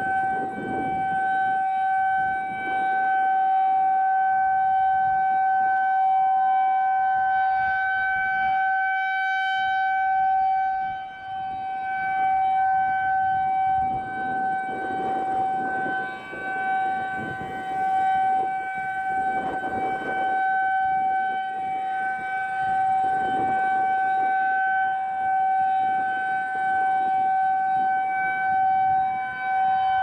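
Federal Signal 2001-SRNB rotating siren sounding a steady single tone during a test, its loudness dipping now and then as the head turns away.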